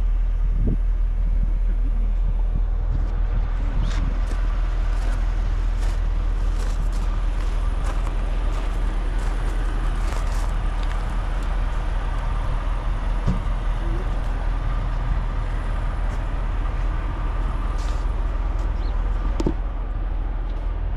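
A motor vehicle engine running steadily: a continuous low rumble with a few faint clicks over it.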